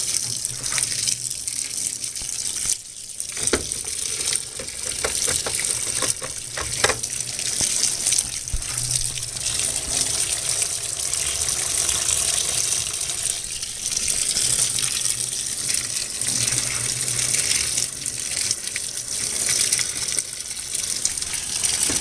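2012 LG top-load washing machine filling on its Heavy Duty cycle: a steady rush of water pouring from the inlet onto a load of wet towels and socks in the tub. A low hum comes and goes underneath.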